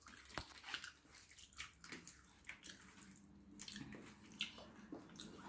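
Faint wet squishing and small irregular clicks of fingers mixing rice with curry on a stainless steel plate.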